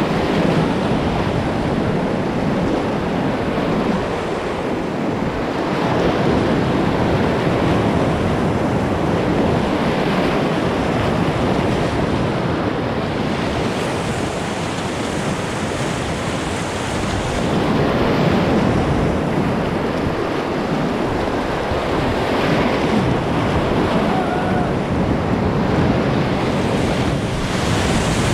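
Rushing whitewater of river rapids around an inflatable kayak: a loud, steady rush of water that swells and eases every several seconds.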